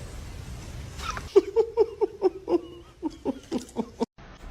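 An animal giving a quick run of short, pitched calls, about four or five a second for nearly three seconds, that cuts off abruptly.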